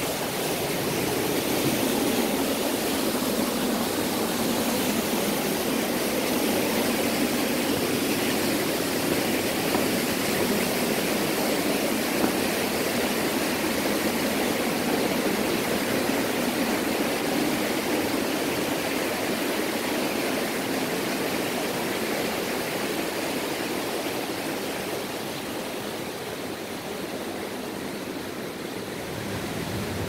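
Steady rushing of a mountain stream and waterfall close by, growing slightly fainter in the last few seconds.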